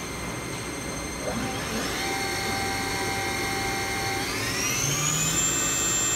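Haas VF-4 CNC vertical mill spindle running with a steady whine that steps up in pitch about two seconds in. From about four seconds in it climbs to a higher, louder, steady whine as the spindle speeds up.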